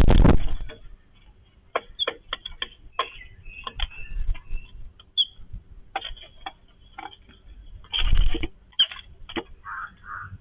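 Yellow-billed babblers feeding: an irregular scatter of short sharp clicks and scratchy notes, with a louder burst of noise lasting about half a second at the start and another about eight seconds in.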